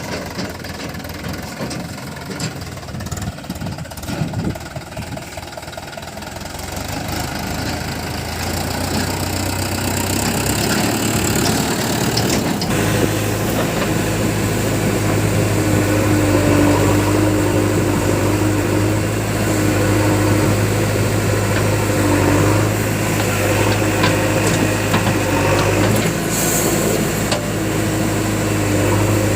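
Diesel engines of heavy farm and earthmoving machinery running; about twelve seconds in the sound grows louder and settles into a steady low drone with a higher tone coming and going above it.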